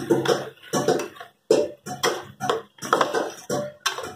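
Thick onion-tomato-ginger-garlic masala paste bubbling and spluttering in a steel pot as it is stirred with a ladle: a quick run of wet plops, a few a second, with brief pauses between them.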